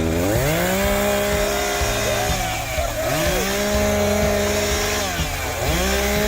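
Chainsaw revved to full throttle three times, each time held for about two seconds and then let back down before the next rise.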